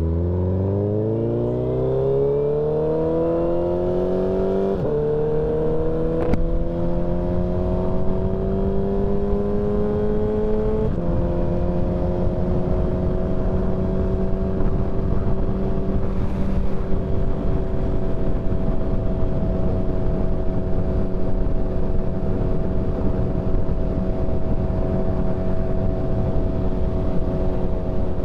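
Suzuki Hayabusa's inline-four engine accelerating hard, its pitch rising, with two upshifts about five and eleven seconds in, then holding a steady cruise. Wind rush runs underneath.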